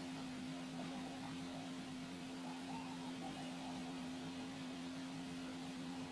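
A steady low electrical-sounding hum over a faint hiss.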